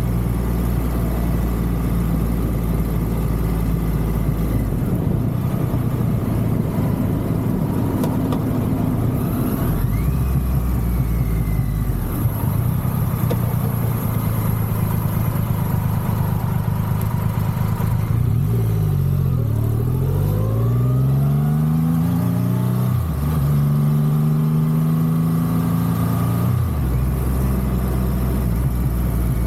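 Triumph Rocket 3's inline three-cylinder engine ticking over, then pulling away with revs rising and stepping through a gear change, and dropping back to idle near the end.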